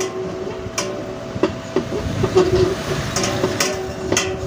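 Irregular metallic clinks and scrapes of a long spanner working a 13 mm nut at the bottom of a stainless steel spin-dryer drum, about half a dozen sharp knocks, over a steady background hum.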